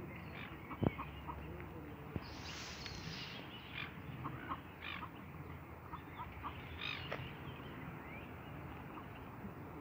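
Mallard ducklings peeping in many short, high, scattered calls. There is a sharp click about a second in and a brief rustling hiss near the three-second mark.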